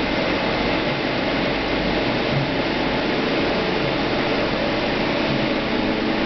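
Taurus TRD 110/3M CNC lathe running with a steady mechanical whir and a faint hum.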